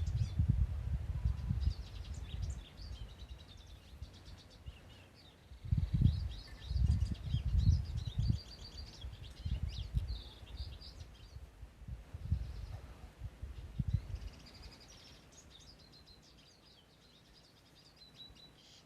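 Several birds singing in quick high chirps and trills, over gusts of wind buffeting the microphone as a low, uneven rumble that is loudest about six to eight seconds in and dies away in the last few seconds.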